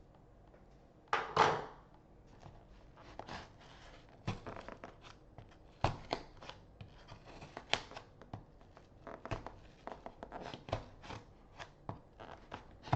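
Hands working at a sealed plastic package that is hard to open: irregular scratching, picking and plastic crinkling, with one louder tearing burst about a second in.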